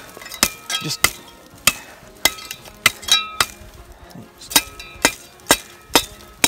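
Steel blade of an East German entrenching tool chopping into a pine tree trunk like an axe: about ten sharp, evenly paced strikes, each with a brief metallic ring, with a short pause a little past halfway.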